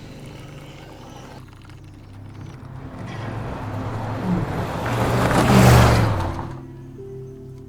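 A vehicle's motor whirring, building up over a few seconds to a loud peak and then dropping off sharply about six and a half seconds in.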